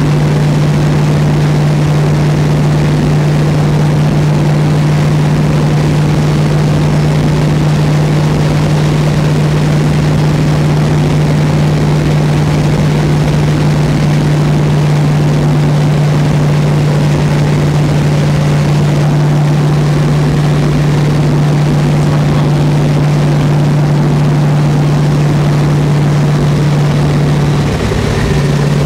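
Turbocharged Diamond T rat-rod truck cruising at road speed, heard inside the cab: a loud, steady engine drone with one strong low hum under road noise. It dips briefly near the end as a gear is changed.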